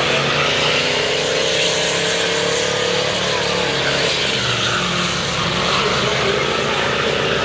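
Car engine held at high revs during a burnout, with the spinning tyres screeching on the asphalt as they smoke. The revs dip briefly about halfway through, then climb again.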